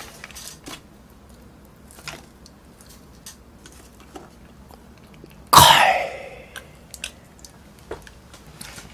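One loud, sudden cough about five and a half seconds in, falling away over half a second. Around it are faint crinkles of fast-food wrapper paper being handled.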